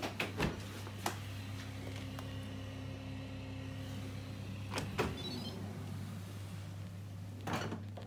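Fisher & Paykel DishDrawer dishwasher drawer being pushed shut with a few knocks near the start. A drawer slides open near the end, with a steady low hum underneath.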